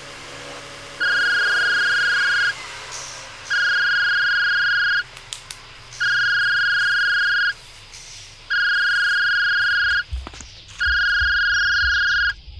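Mobile phone ringing with a plain electronic ringtone: five long beeps of one tone, each about a second and a half, repeating every two and a half seconds. The ringing stops near the end as the phone is picked up to be answered.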